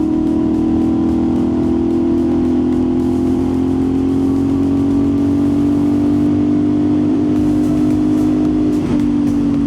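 CFMOTO 450SS parallel-twin engine running at a steady cruise, its note sagging slowly, with a brief dip and change of pitch near the end, over low wind and road rush.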